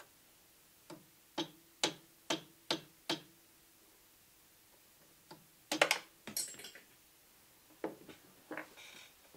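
A steel pin punch tapped with a small plastic-faced hammer, six sharp taps about half a second apart, driving the tiny mainspring pin out of a SIG P230 hammer strut and magazine catch assembly held compressed in an arbor press. A louder clatter of knocks follows about six seconds in, with a few lighter knocks near the end.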